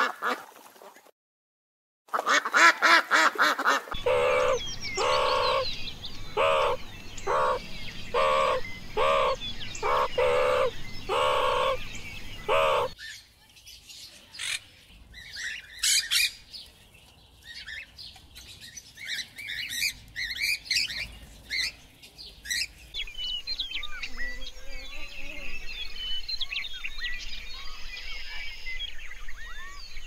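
Ducks calling: rapid chattering calls broken by a short gap, then a regular run of about ten loud honking quacks, roughly one a second. After about 13 seconds they give way to softer scattered bird chirps and twitters.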